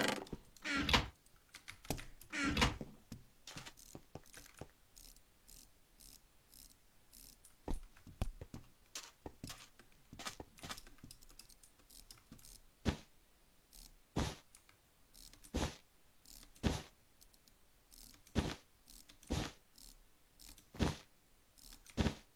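A series of short, sharp clicks and knocks with quiet in between, irregular at first and then coming about once a second in the second half.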